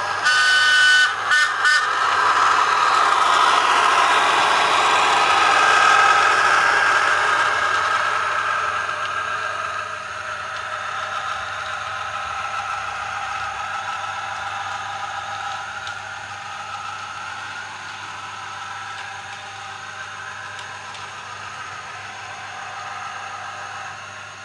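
A model railway railcar running along the layout track: a motor whine with wheel noise on the rails. A few short tones and clicks come just after the start. The sound is loudest around six seconds in, then gradually fades as the railcar moves away.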